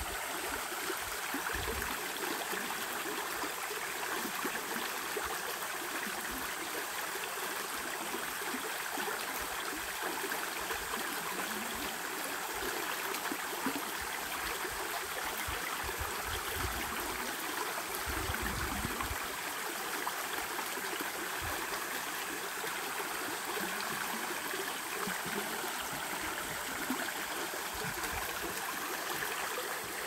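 Mountain valley stream flowing, a steady, unbroken rush of water.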